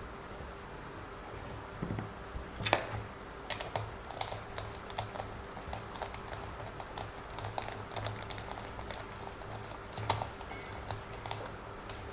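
Light, irregular clicks and taps of small plastic parts and a small tool being handled while the suspension of a WLToys 144001 RC car is reassembled, with one sharper click a little under 3 seconds in.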